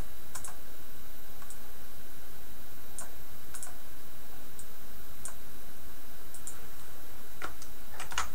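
Scattered clicks of a computer mouse and keyboard during editing work: about a dozen short, irregularly spaced clicks with a quick cluster near the end, over a low steady hum.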